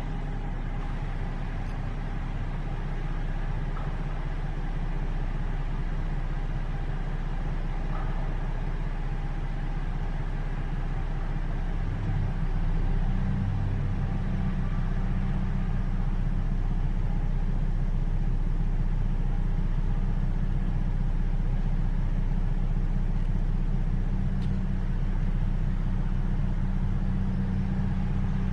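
A vehicle engine idling steadily, a low hum that grows a little louder about twelve seconds in.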